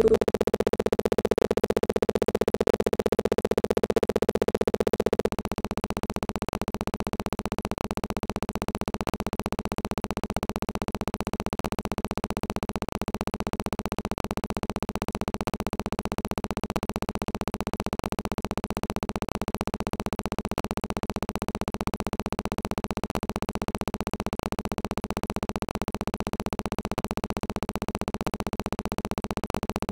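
A steady electronic buzzing tone that drops to a lower, quieter buzz about five seconds in and then holds unchanged, with a fast even ticking through it: the audio stuck in a repeating digital loop, cutting off the speech mid-sentence.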